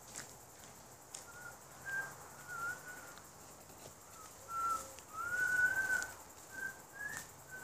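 A person whistling a slow tune: single clear notes that waver slightly in pitch, with one long arching note near the end.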